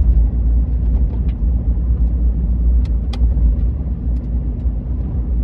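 Steady low rumble of a car running, with a few faint scattered clicks; the sharpest click comes about three seconds in.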